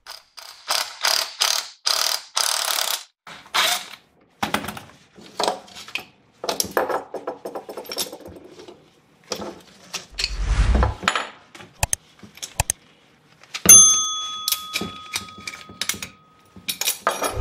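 Cordless impact driver rattling in short bursts as it loosens the bolts on the belly band of an old furnace blower motor, followed by the steel band and mounting brackets clanking and scraping on a wooden workbench. About fourteen seconds in, a sudden, loud bell-like chime rings steadily for a few seconds.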